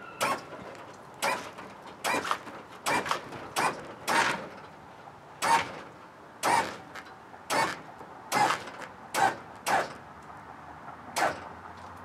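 Lowrider hydraulic pump on a 1979 Chevrolet Caprice running in about fifteen short, irregular bursts as the switch is tapped, lifting the front end to full lockup on extended ball joints.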